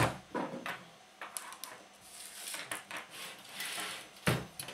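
The partly dismantled metal amplifier chassis being handled and shifted on a work table: a sharp knock at the start, small clicks and rattles, and another solid knock near the end.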